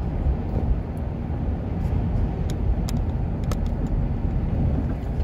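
Steady road and engine noise inside a moving vehicle's cabin, a low rumble, with a few faint clicks about halfway through.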